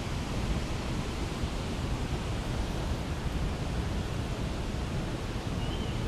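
Steady rushing of the Krimml Waterfalls, an even noise without breaks.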